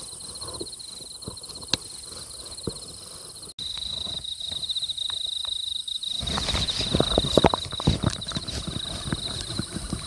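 A steady, high, finely pulsing trill of night insects. Over it come irregular clicks and knocks, which get louder and busier from about six seconds in.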